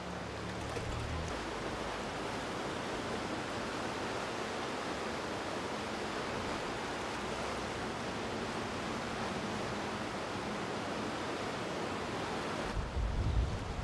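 Steady rushing wash of street floodwater. A louder low rumble comes in near the end.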